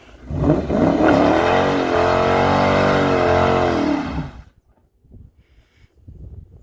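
Dodge Challenger engine revved hard for about four seconds, its pitch climbing then sagging, before it dies away quickly. The driver blames such cut-outs on the car's electronics taking the throttle away and shutting the engine off during a burnout attempt with traction control switched off.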